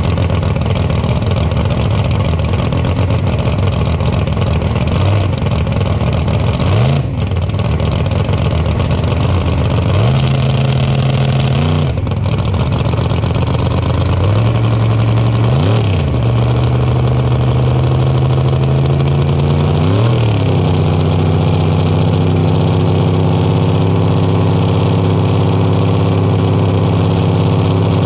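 1963 Ford Falcon drag car's engine idling, with a few quick throttle blips that rise and fall in pitch. In the second half it holds a steadier, slightly higher idle.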